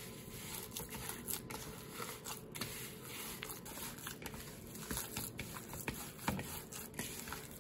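Hands mixing and kneading raw ground beef with breadcrumbs and egg in a plastic bowl, giving many short, irregular wet squishes.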